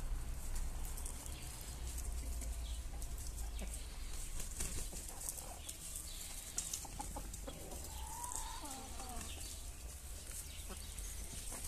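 Aseel chickens clucking quietly, with one short call about eight seconds in, over a steady low rumble.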